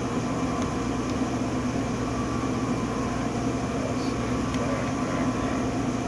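Steady hum of a Bridgeport Romi EZ-Path SD CNC lathe running under power, with the carriage's Z and X axes not yet feeding.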